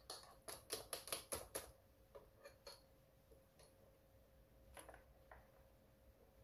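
Stainless mesh sieve tapping and clinking against a metal pot while cooked tapioca pearls are drained of their starchy water: a quick run of about eight light taps in the first second and a half, then a few scattered ones.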